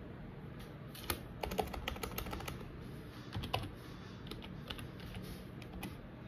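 Typing on a computer keyboard: irregular runs of key clicks, the busiest stretch about a second and a half in and another burst about three and a half seconds in.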